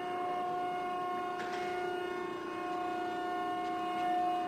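The hydraulic pump of a Wysong 60-ton CNC hydraulic press brake running, giving a steady hum with a few even overtones.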